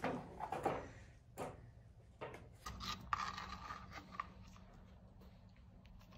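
A wooden stick scraping and knocking against a sliding door frame and doormat as a puppy tries to carry it through the doorway: a cluster of sharp knocks in the first second and a half, then more scraping about two to four seconds in.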